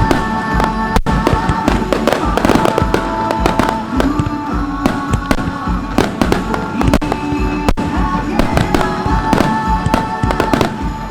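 Aerial fireworks bursting in a rapid, dense volley of many reports and crackles, with music playing steadily underneath.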